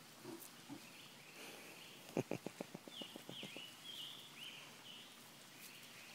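Faint outdoor background with a quick run of about a dozen clicks about two seconds in, followed by several short, falling chirps of a small bird.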